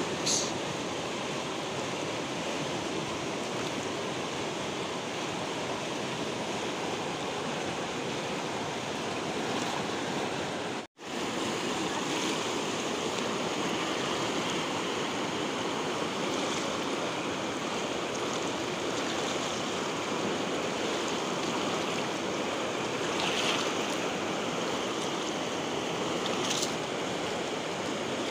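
Steady rushing of a fast, swollen river flowing past the bank. The sound cuts out for an instant about a third of the way through, and there are a few short, faint hissing flicks.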